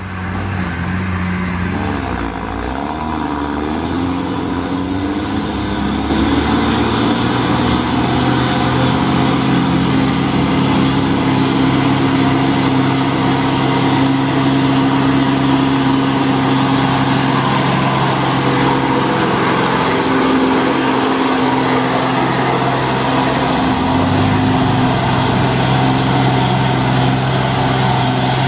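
Hino Ranger dump truck's diesel engine labouring up a steep climb, barely able to pull, growing louder as it nears and passes. Its steady note drops and picks up again about three-quarters of the way through.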